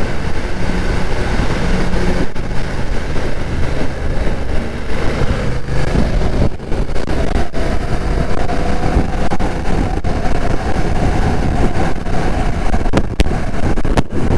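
BMW F900R's parallel-twin engine running while riding, with wind noise rushing over the microphone. A steady higher whine comes in about halfway through.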